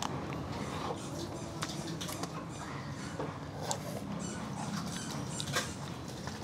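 Mouth sounds of people eating ice cream bars: scattered short, wet smacks and clicks of licking and biting, over a steady low background hum.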